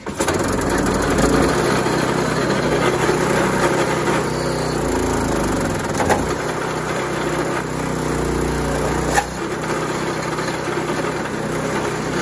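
Small Harbor Freight gas engine starts abruptly and runs hard, belted to a Cummins V8 diesel's crank pulley that it cannot turn over; the belt is slipping on the pulley and burning off. Its speed dips briefly about five seconds in, with two sharp knocks, the louder one about nine seconds in.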